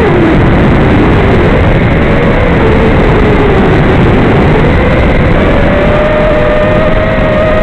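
Brushless motors of a 5-inch FPV racing quadcopter (2206, 2522 kV) whining in flight over a loud rushing noise. Their pitch drops at the start and climbs back up about five seconds in, following the throttle.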